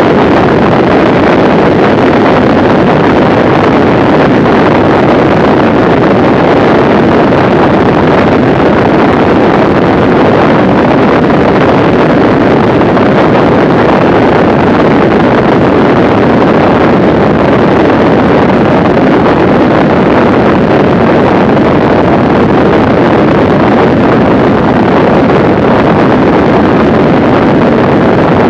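Steady, loud rush of wind noise on the microphone mixed with the noise of a Mooney M20C light aircraft in flight at about 130–145 mph.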